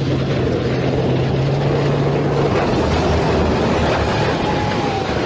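Loud, steady engine rumble of a military tank sound effect, a deep drone under a hissing roar that drops to a lower pitch about halfway through.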